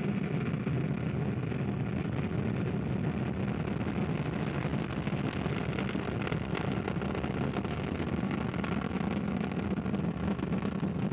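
Ariane 5 rocket lifting off: a steady, continuous roar from its Vulcain main engine and its two solid rocket boosters firing together.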